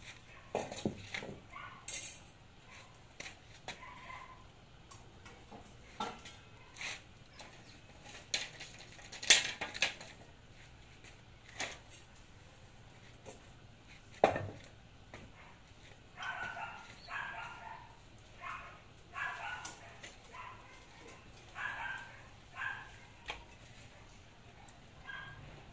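Scattered knocks and clatter of bamboo poles and a wooden chair being handled, loudest a little after nine seconds and at about fourteen seconds. From about sixteen seconds a dog barks in a quick run of short barks.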